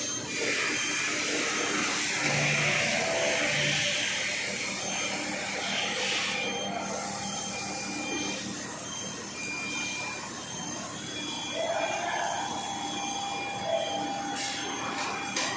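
Machinery running with a steady whirring hiss.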